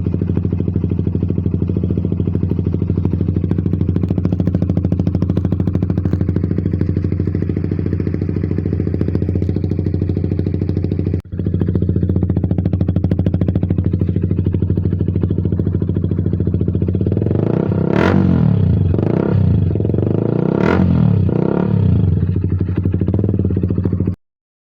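Honda CBR150R's single-cylinder four-stroke engine idling steadily through a Yoshimura Alpha slip-on exhaust with its silencer insert removed. Near the end the throttle is blipped twice, the revs rising and falling quickly.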